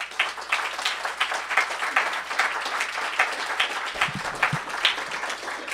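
An audience applauding in a standing ovation: a dense, steady clatter of many hands clapping that swells in during the first second.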